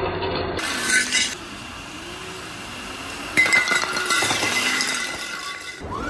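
Broken glass clinking and crunching in two bursts, about a second in and again around four seconds in, as a scale RC crawler truck drives over debris.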